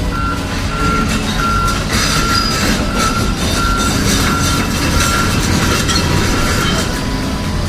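Truck-style reversing alarm beeping evenly, about a beep and a half a second, over a low vehicle rumble; the beeping stops near the end.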